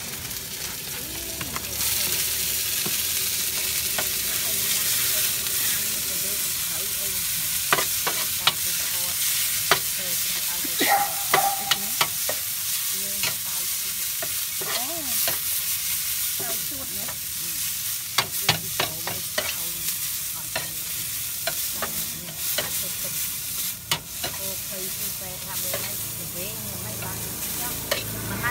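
Meat and bean sprouts sizzling on a wide, shallow steel wok as a metal spatula stir-fries them, scraping and clinking against the pan. The sizzle grows louder about two seconds in, and from about eight seconds in the spatula's sharp clinks come often.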